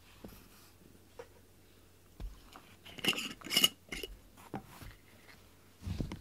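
Glass jar being handled on the floor: a few light knocks, then a burst of glass clinks about three seconds in, followed by smaller taps.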